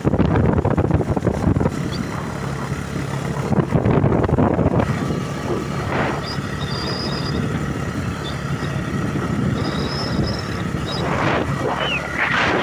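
Motorcycle engine running steadily at cruising speed, heard up close from the pillion seat, with wind buffeting the microphone in gusts.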